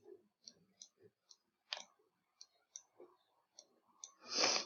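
Computer mouse button clicking: about a dozen light clicks at uneven intervals as short paint strokes are drawn one by one. Near the end comes a brief breathy rush of noise, the loudest sound.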